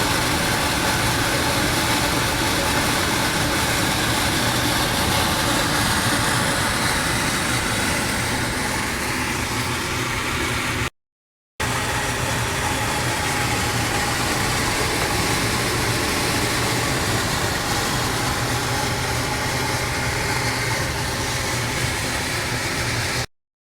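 Steady mechanical hum of running machinery, with a low steady tone under a wide hiss. It drops out twice in brief silent cuts, about eleven seconds in and near the end.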